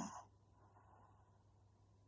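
A sleeping woman's snore fades out about a quarter second in, followed by a near-silent pause between snores with only a faint breath hiss.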